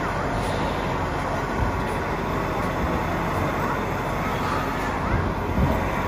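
A radio-controlled hydraulic model excavator runs steadily as it digs in soil, under the dense din of a crowded hall, with a few short thumps.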